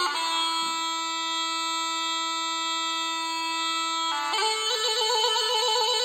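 Background music: a solo melody instrument holds one long note for about four seconds, then moves up into a melody with quick trills.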